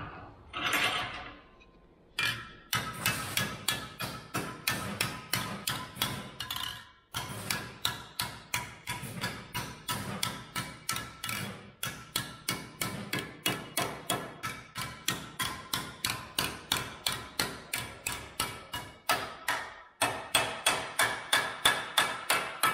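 Panel hammer striking a sheet-steel patch clamped in a bench vise: a fast, even run of ringing metallic blows, about three a second, shaping a door repair patch by hand. The hammering starts about two seconds in and pauses briefly twice.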